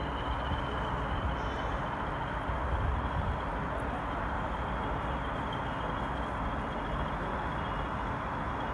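Steady distant engine rumble with a faint high whistle over it.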